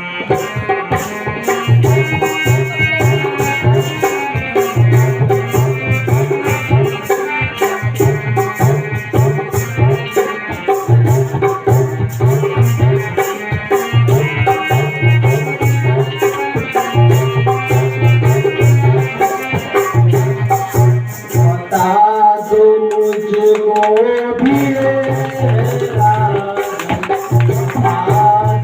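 Music with a steady low drum beat, a shaker-like rattle keeping time and a sustained melody line. The drum drops out for about two seconds a little past the middle, then comes back.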